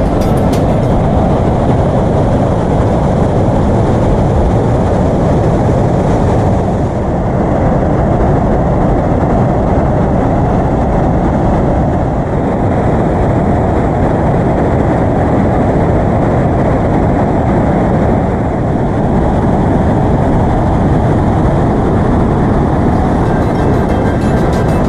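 Mountain stream and waterfalls rushing over rocks: a loud, steady roar of water with no break.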